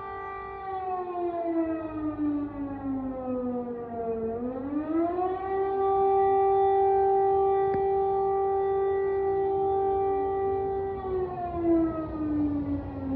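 Air raid siren wailing, the warning of an air raid. Its steady tone starts falling about half a second in, climbs back up between four and five seconds in, holds steady, and begins falling again near the end.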